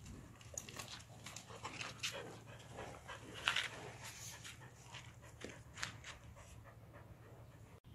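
A dog panting with its mouth open, in short irregular breaths, with one sharper click about three and a half seconds in.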